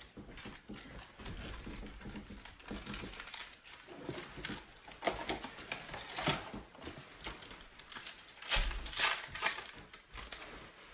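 Trading cards and their plastic pack wrappers being handled, giving irregular rustling, crinkling and clicking. The loudest stretch comes about nine seconds in.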